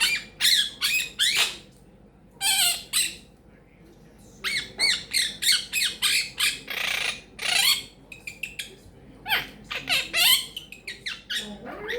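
Quaker parrot (monk parakeet) squawking and chattering in a string of short, sharp calls with quick rising and falling pitch, broken by two brief pauses, with one harsher, rasping call near the middle.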